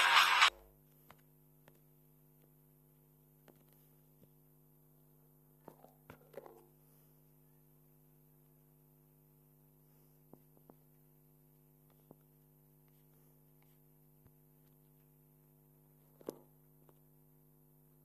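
Faint steady electrical hum made of several low steady tones. A short loud noisy burst comes right at the start, and a few faint ticks follow later.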